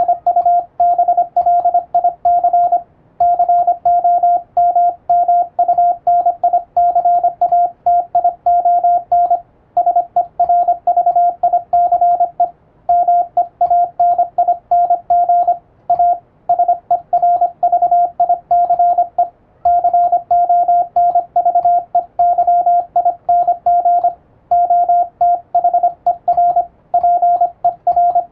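Morse code sent with an electronic keyer: a single steady tone keyed on and off in rapid dots and dashes, in letter groups with short pauses between words, sending an English-letter radiotelegram as receiving practice.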